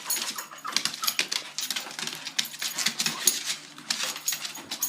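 A dog and a pet bird scuffling, heard as an irregular run of quick clicks and taps from their claws and feet.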